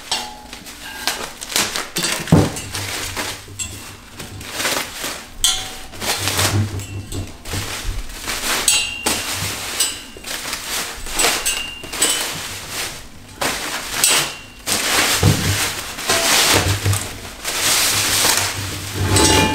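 Plastic packing wrap and bubble wrap crinkling and tearing in irregular crackles as it is stripped off a tubular metal chair base, with a few dull knocks from the frame being handled.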